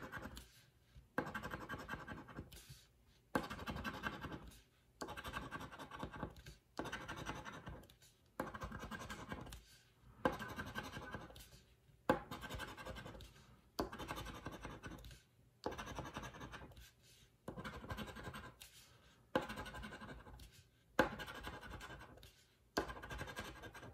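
A round scratcher tool scraping the coating off a scratch-off lottery ticket in a steady run of about thirteen strokes, one roughly every second and a half, each starting sharp and trailing off.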